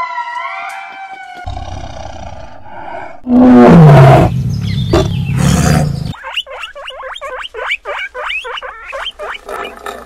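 Animal calls in quick succession: high calls wavering in pitch in the first second and a half, then a loud tiger roar falling in pitch about three seconds in, then a fast run of short repeated calls.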